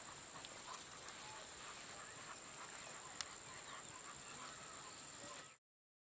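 Quiet outdoor ambience: a steady high-pitched drone with a few faint short animal calls, a cluster of them about a second in. The sound cuts off suddenly near the end.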